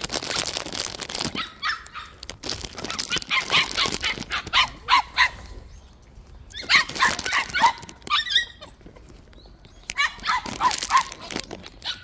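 White puppies barking and yipping in several bursts of quick, high yaps, with pauses of a second or two between bursts.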